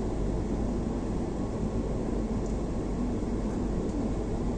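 Steady running noise of a moving Vande Bharat electric train, heard from inside the carriage: an even low rumble with no distinct knocks or changes.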